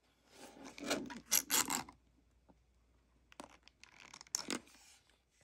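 Small plastic paint pots being pushed back into the slots of a clear plastic tray: plastic clicking, scraping and rubbing, in two bursts of handling.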